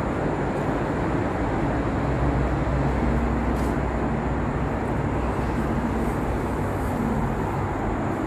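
Steady outdoor background noise with a heavy low rumble and no distinct events.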